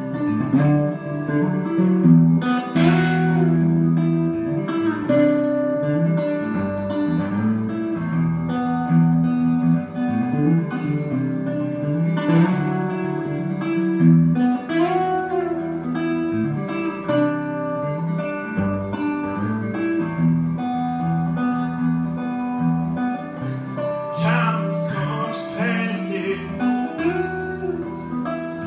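Solo guitar played live, chords and single notes ringing one into the next at a steady level, with a couple of seconds of brighter, harder strokes near the end.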